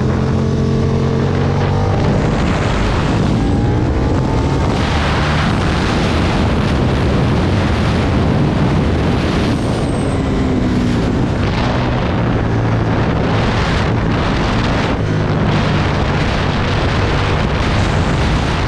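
Aprilia Tuono V2 motorcycle engine running hard on track, its pitch rising and falling as the revs climb and drop, over heavy wind rush on the microphone.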